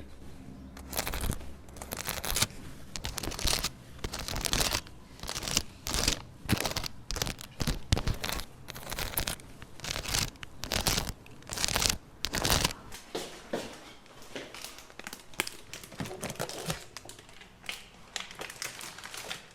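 Fingernails scratching over a durian, a run of quick, irregular scratchy strokes. The strokes are busiest for the first dozen seconds and lighter after that.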